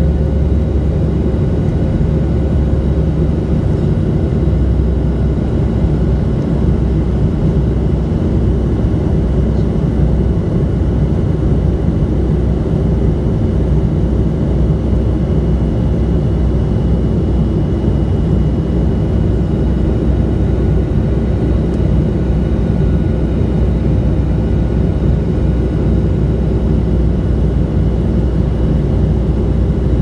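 Cabin noise of a departing jet airliner: a steady, loud low rumble of engines and airflow, with a few faint steady whining tones on top.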